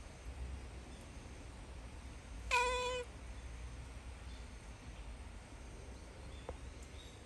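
Domestic cat giving a single short meow of about half a second, a couple of seconds in, on one steady pitch.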